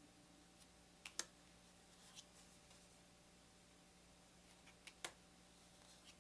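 Near silence over a steady low hum, broken by a few soft clicks from paper cards being handled: a double click about a second in, a faint tick near two seconds, and another double click about five seconds in.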